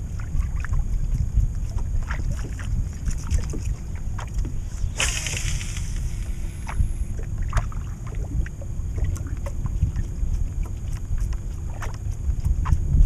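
A fishing cast made with a baitcasting rod and reel: about five seconds in, a sharp short whoosh as the rod whips forward and line pays off the reel. Underneath is a steady low rumble of wind on the microphone, with scattered light clicks.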